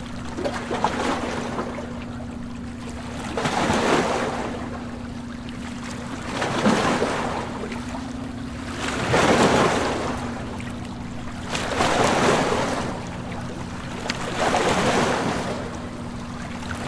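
Small waves washing onto a sandy shore. Each one surges and falls back, about every two and a half to three seconds.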